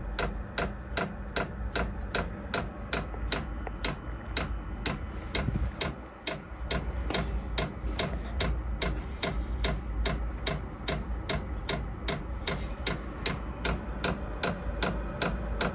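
Vevor diesel heater's fuel dosing pump ticking evenly, about three clicks a second, over the steady low hum of the heater running: the heater is still warming up at start-up, drawing fuel before its air comes out hot.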